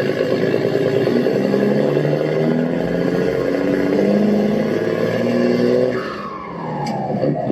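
Background music with held notes that step from one pitch to another, and a falling sweep about six seconds in.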